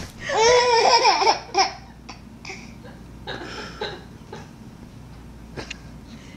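A baby laughing hard in one loud burst for about the first second and a half, then a few fainter short laughs.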